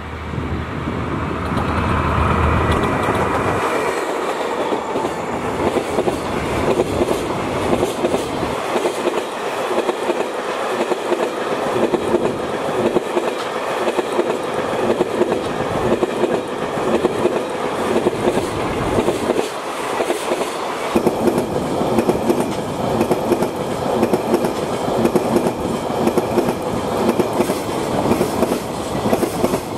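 DF200 diesel-electric freight locomotive passing close by, its engine rumbling for the first four seconds or so, then a long string of container wagons rolling past with steady, rhythmic wheel clatter over the rail joints.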